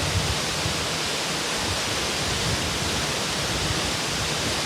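A waterfall rushing steadily, an even, unbroken noise of falling water.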